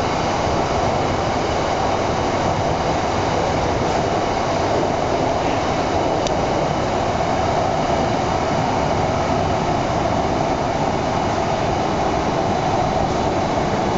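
Steady running noise of a Shanghai Metro Line 9 AC09 train, heard inside the passenger car: an even rumble and rush of wheels on rail, with one faint click about six seconds in.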